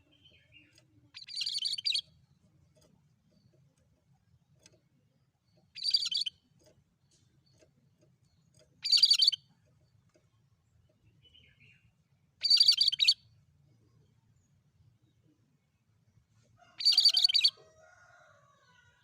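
Cucak kerinci (Sumatran laughingthrush) giving five short bursts of rapid, harsh chattering calls, each well under a second long and spaced a few seconds apart.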